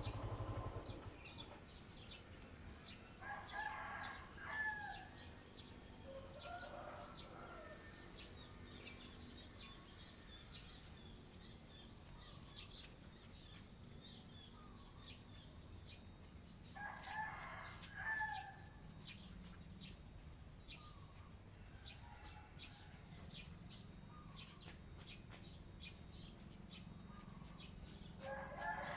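A rooster crowing repeatedly, several seconds apart, over a faint low steady hum.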